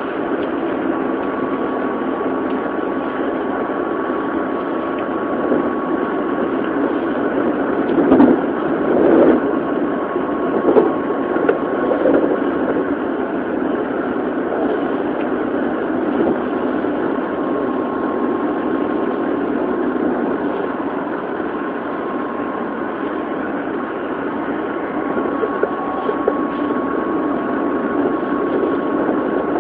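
Inside an Odakyu 1000 series electric train car (DeHa 1101, with its original Mitsubishi GTO inverter) running on the line: a steady rumble of wheels on rail with a thin steady tone over it, and a few louder knocks and rattles about eight to twelve seconds in. Recorded on a mobile phone, so it sounds thin and dull.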